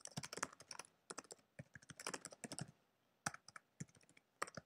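Computer keyboard typing: faint, quick runs of keystrokes broken by short pauses.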